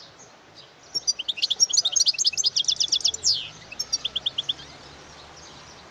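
European goldfinch singing: a fast run of high twittering notes starting about a second in and ending in a downward slurred note, then a short burst of five quick notes.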